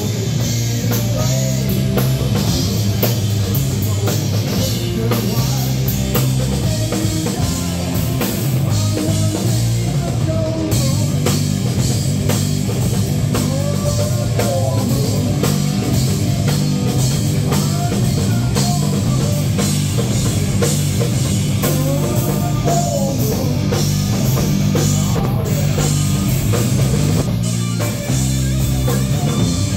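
Live hard rock band playing loud and steady: distorted electric guitars, bass guitar and a drum kit keeping a driving beat, with recurring bending lead lines over it.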